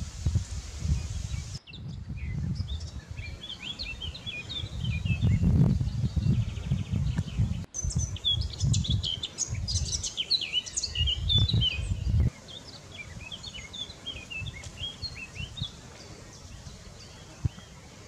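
Songbirds singing, with many quick, high chirping notes overlapping. A low rumble runs underneath and stops abruptly about two-thirds of the way through.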